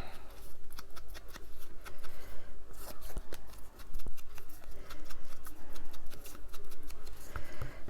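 Paper being worked by hand on a craft desk: a quick, irregular run of short scratchy strokes and light taps.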